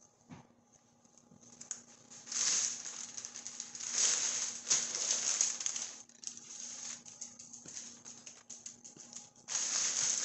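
Paper crinkling and rustling in several bursts as a raw lamb shoulder is lifted, turned and seasoned on a sheet of paper.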